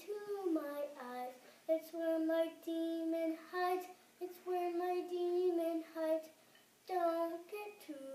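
A young boy singing a slow melody unaccompanied, holding notes of about a second, with short pauses between phrases.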